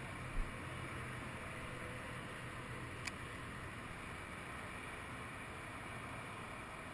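Steady low rumble and hiss of distant road traffic, with a dull thump about half a second in and a single short click about three seconds in.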